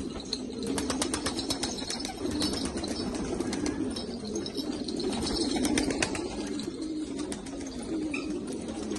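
A flock of domestic pigeons cooing in a continuous, overlapping murmur. A quick run of sharp clicks sounds over the first three seconds.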